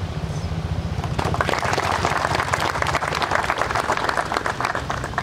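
An audience applauding, with many hands clapping together: it starts about a second in and stops near the end.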